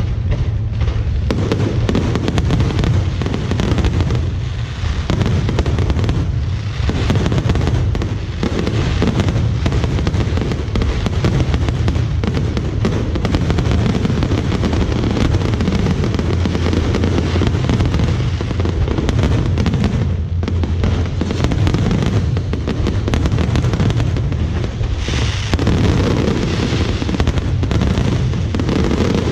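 Fireworks show going off without pause: a dense, continuous barrage of bangs and crackles.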